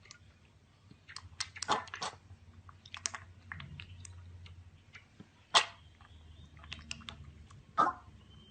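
Chewing: irregular crunches and clicks, with louder ones about two, five and a half and eight seconds in.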